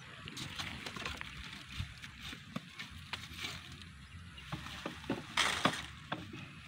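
Cassava roots being dug and pulled out of loose soil by hand: scattered rustles, snaps of dry stalks and crumbling clods, with a louder rush about five and a half seconds in.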